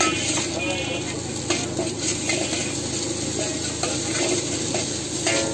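Eggs sizzling in hot oil in a steel wok while a metal spatula scrapes and taps against the pan, stirring and scrambling them.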